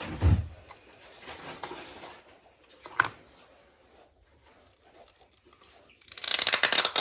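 Kitchen handling noises while seasoning popcorn: a dull thump at the start, a sharp click about three seconds in, then about a second of loud, rapid rustling rattle near the end.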